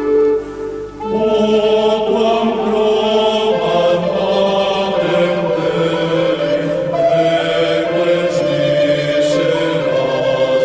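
Background music: voices singing a slow, sustained chant in held notes, the fuller singing coming in about a second in after a brief dip.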